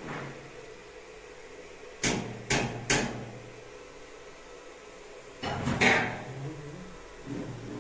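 Sharp knocks: three about half a second apart a couple of seconds in, then a louder clatter of knocks near six seconds.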